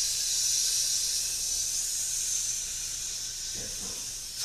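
A man's long, forceful exhale hissed out through a small mouth opening while his abdomen is held tight in reverse breathing. It is one steady hiss that slowly weakens and cuts off sharply near the end.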